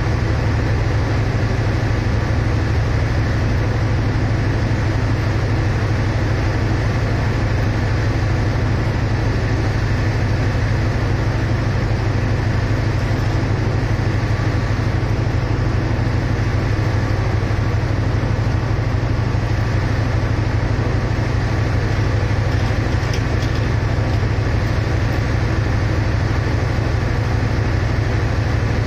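Stationary diesel passenger train idling at the platform: a steady low engine drone with a constant hum that does not change.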